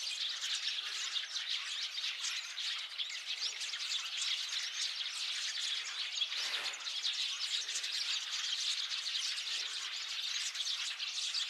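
A large flock of Eurasian tree sparrows chirping all at once, a dense, continuous chatter of overlapping short calls. A brief whoosh cuts through about six and a half seconds in.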